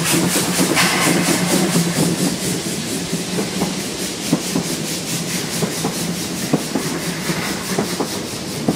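750 mm gauge DR class 99.77–79 steam tank locomotive 99 1789-9 passing close by: quick, even exhaust beats with steam hiss that fade over the first few seconds. Then the wheels of its coaches click over the rail joints as the train runs past.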